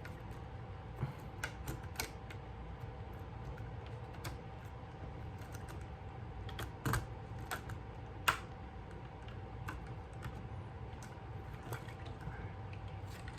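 Scattered light clicks and taps of small parts being handled during a bass pickup install, irregular, with two sharper knocks about seven and eight seconds in. A faint steady hum runs underneath.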